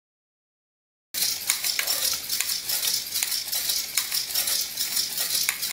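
After about a second of silence, the two small hobby servos of a walking robot insect start running: a steady high hiss with a rapid patter of small clicks as the legs move.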